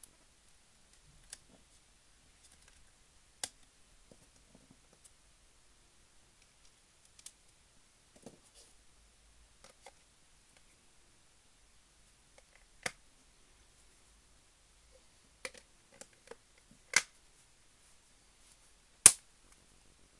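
Scattered sharp plastic clicks and light taps as an HTC Wildfire S is handled and put back together: the battery is fitted and the back cover pressed on, its clips snapping into place. The loudest snap comes about a second before the end.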